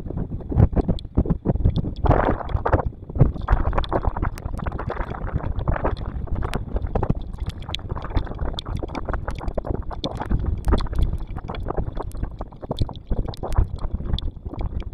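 Storm wind buffeting an outdoor microphone in gusts, a rough low rumble with many small ticks, likely rain striking the housing.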